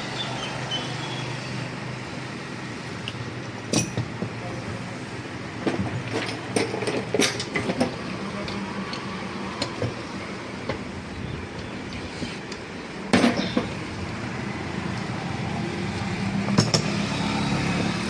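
Scattered clicks and clinks of hard parts being handled and set down, a cluster of them in the middle, over a steady low background hum.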